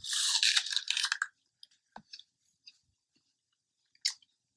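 Someone biting into a crisp apple: a loud crunch lasting just over a second, then quiet chewing with a few faint clicks.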